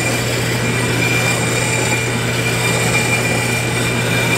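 Metal lathe running with a steady hum while a reversed hacksaw blade is held against the spinning metal workpiece, cutting it off, a continuous scrape of blade on metal over the motor.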